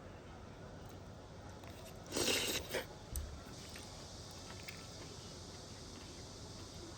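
A single crunchy bite into crisp food, a short burst of crunching about two seconds in, followed by a soft low thump.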